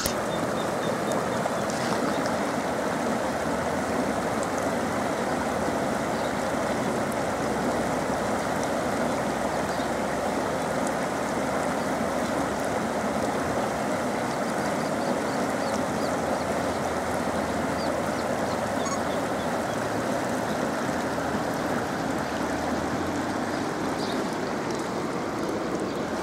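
Turbulent muddy floodwater from a mudflow after rain, rushing steadily through a washed-out channel.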